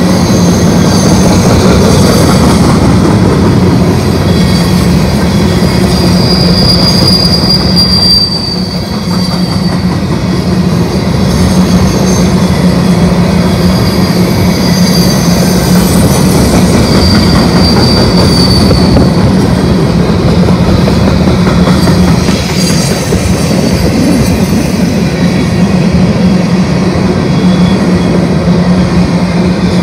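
Coal train hopper cars rolling past at close range with a loud, steady rumble. Several high, thin wheel squeals come and go through it.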